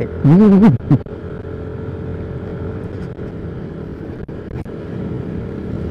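Yamaha NMAX scooter's single-cylinder engine running steadily while riding, with road noise; a brief word is spoken in the first second.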